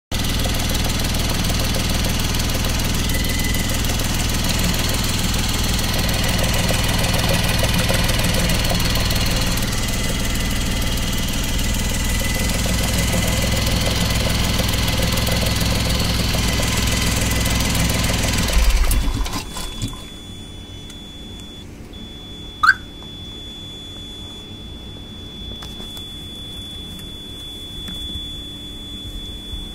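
Ashok Leyland Dost CNG engine running steadily with its oil filler cap off, then cutting out about two-thirds of the way through. After it stops, a faint steady high-pitched tone remains, with one short chirp.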